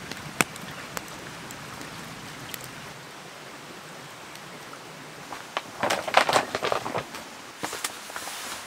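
Wood fire crackling with a few sharp pops over a steady hiss of water. About six seconds in comes a louder, jumbled flurry lasting about a second.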